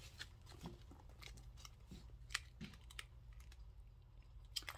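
Faint, scattered light clicks and taps of a small leather handbag being handled and adjusted, with a sharper click about two and a half seconds in and another near the end, over a low steady hum.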